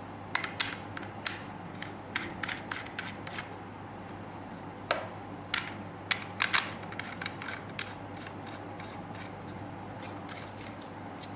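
Small metal and plastic parts being handled and threaded together: a thread adapter and an atomizer screwed onto an e-cigarette phone case, giving irregular sharp clicks and short scrapes. These come thickest in the first seven seconds or so and grow sparse toward the end, over a steady low room hum.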